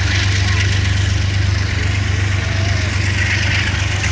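Metro-North diesel locomotive's engine running with a steady low hum, with a hiss above it.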